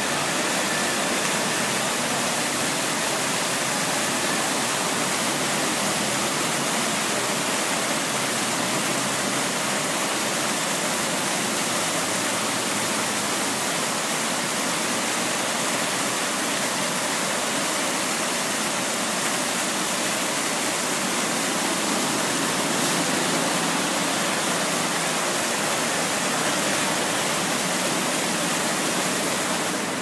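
Water fountain jets and falling-drop display splashing steadily into the basin, a continuous even rush of water.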